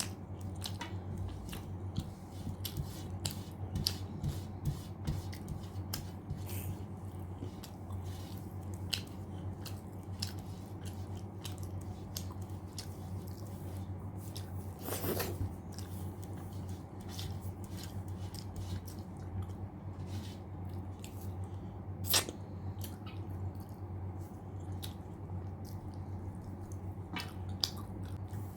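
Close-up chewing of a mouthful of mutton curry and rice, with many small wet mouth clicks and smacks, over a steady low hum.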